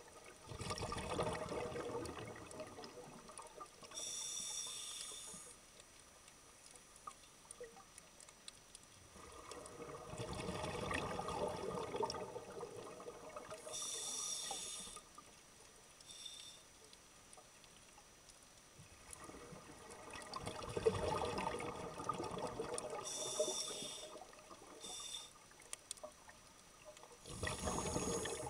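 A scuba diver breathing slowly through a regulator underwater: each cycle is a long bubbling exhalation of about three to four seconds, then a short hiss of inhalation from the regulator, then a few seconds of held breath. The cycle repeats about every nine seconds.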